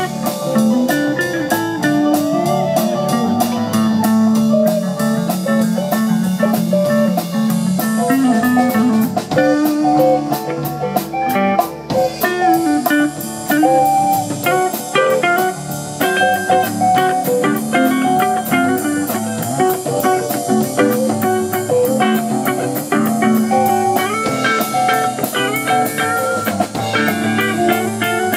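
Live rock band playing an instrumental jam: electric lead guitar lines with bent notes over rhythm guitar and a drum kit with cymbals.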